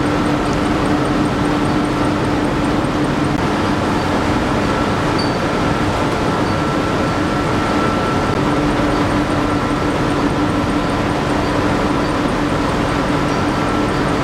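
Tea-factory sorting machines with vibrating sieve trays running with a steady, unbroken mechanical din and a steady hum. A faint high ticking, about four a second, sounds in the first few seconds.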